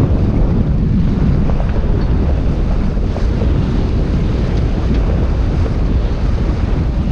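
Steady wind buffeting the microphone aboard a sailboat under way in a fresh breeze, mixed with the rush of water along the hull.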